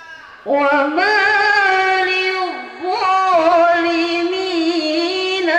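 A young woman's solo voice begins melodic Islamic devotional chanting about half a second in, amplified through a microphone: long held notes with wavering ornaments, broken once by a short breath near the middle.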